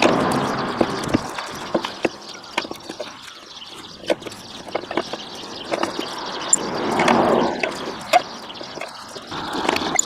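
Car jack being worked to lift the car, with irregular metallic clicks and creaks and a swelling rasp at the start and again about seven seconds in.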